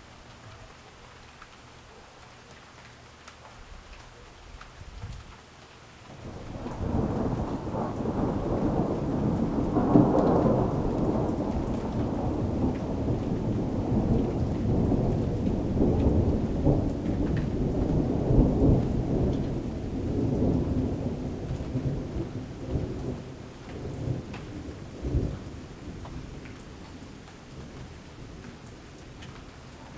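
Steady rain falling, then about six seconds in a long roll of thunder builds, peaks, and rumbles on for some fifteen seconds before fading away, with one last short boom near the end.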